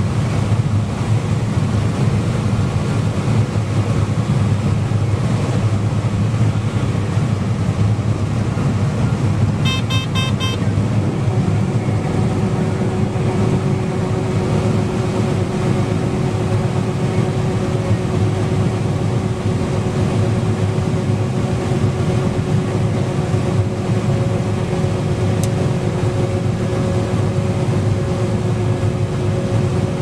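Combine harvester working through standing corn, heard from inside the cab: a steady low drone of the engine and harvesting machinery. About ten seconds in comes a quick run of electronic beeps, and from then on a steady whining tone rides over the drone.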